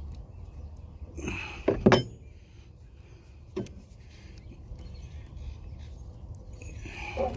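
Metal wrenches clinking as they are handled: two sharp clanks just under two seconds in, a single click a couple of seconds later and a short rattle near the end, over a low steady rumble.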